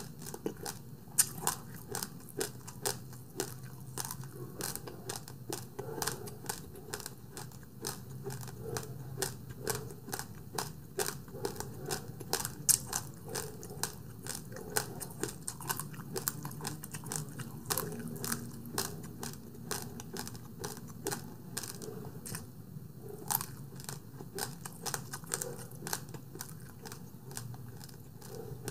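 Close-miked eating of basmati rice with sweetened condensed milk: wet mouth clicks and chewing crackles come irregularly, several a second, with a few sharper clicks.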